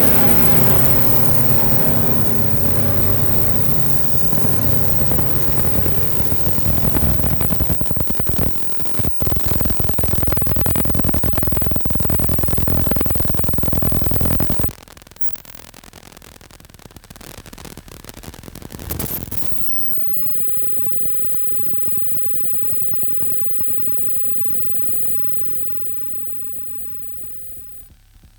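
Hardware synthesizers playing a dense, noisy electronic drone. It cuts off abruptly about halfway through, leaving a quieter hiss with one brief swell, which fades toward the end.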